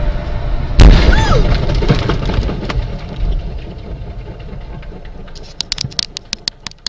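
A cement tanker truck's tyre blows out with a single very loud bang about a second in, followed by road noise fading away. Near the end comes a rapid run of sharp clicks.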